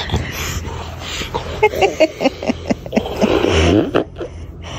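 Close breathy vocal sounds and short squeaks from a baby at play, over scattered taps and rubbing from the phone being handled right against him.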